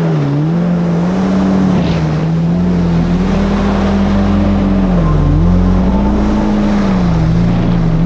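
Yamaha GP1800R SVHO jet ski's supercharged engine running at speed, its pitch dipping briefly a few times, over rushing water and wind.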